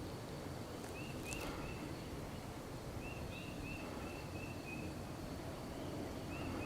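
A small songbird calling in short, quick chirped notes: a few about a second in, a run of about seven around the middle, and a couple more near the end. A steady low rumble underneath, and one brief click about a second and a half in.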